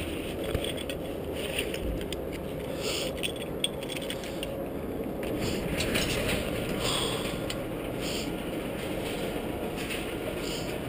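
Rustling and clicking as a hand rummages in a backpack, then a sectional garage door's opener running from about six seconds in as the door rolls up on its tracks.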